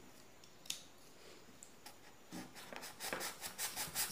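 Snap-off utility knife blade sawing into a polystyrene foam ball: short rasping strokes, about four a second, start about halfway through and grow stronger. A single click sounds just before the one-second mark.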